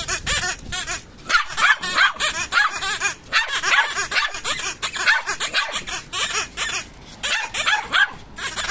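Yorkshire terrier yapping and yipping in quick, high, excited barks, many in rapid succession, at a rubber toy held just out of reach.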